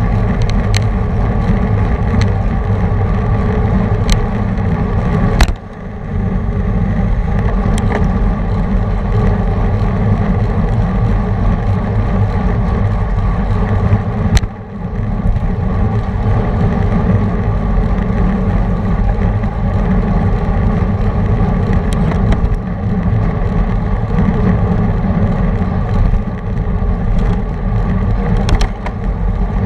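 Wind buffeting the microphone of a bicycle-mounted camera riding in a racing pack, a loud steady low rumble mixed with road noise. A few sharp clicks cut through it, the loudest about five and fourteen seconds in.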